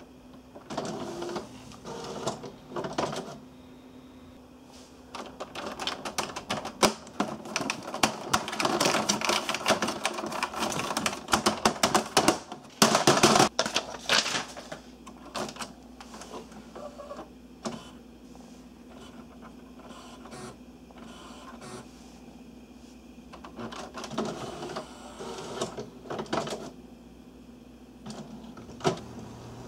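HP Photosmart C5280 inkjet printer mechanism running a cartridge alignment: the print carriage and paper feed whir and clatter in bursts. It is busiest and loudest for several seconds in the middle, with sharp clacks, then runs in quieter bursts as the alignment page starts printing.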